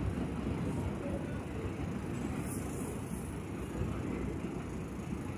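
R160 subway train running along a steel elevated structure as it pulls away: a steady low rumble.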